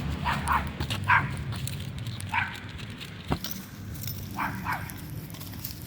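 A dog barking in short, separate barks, about seven in all, with a sharp click about halfway through.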